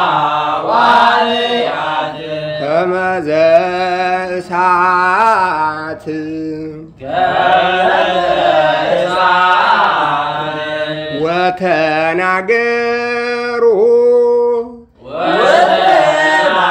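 Ethiopian Orthodox zema chant in Ge'ez: a voice drawing out long melismatic notes with wavering pitch. It breaks off briefly about seven seconds in and again near fifteen seconds.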